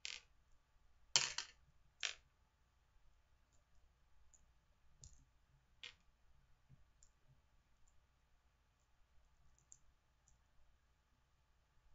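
Scattered short clicks and light knocks from jelly beans and their box being handled and sorted on a desk, with a louder cluster about a second in and single clicks near two and six seconds.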